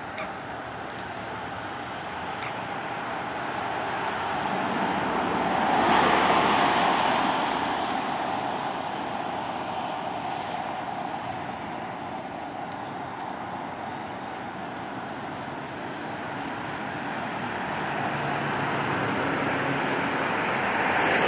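Emergency vehicles and traffic passing on a city street: a steady rush of engines and tyres that swells to its loudest as a vehicle goes by about six seconds in, eases off, then builds again near the end.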